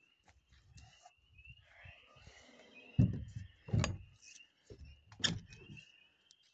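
Three heavy knocks and thumps in the second half, from handling and footsteps on the move, over short high chirps that repeat about twice a second throughout.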